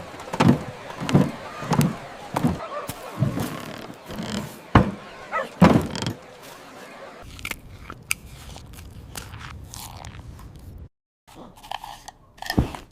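A run of evenly spaced thuds, about three every two seconds, giving way after a few seconds to scattered sharp knocks, then a low steady rumble.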